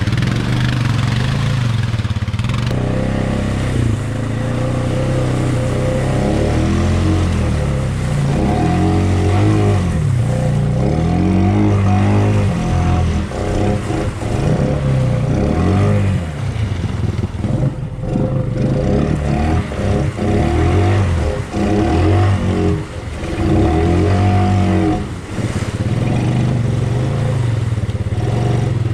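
Honda Rubicon 500 ATV engine revving up and down again and again, its pitch rising and falling every few seconds as it works hard through mud.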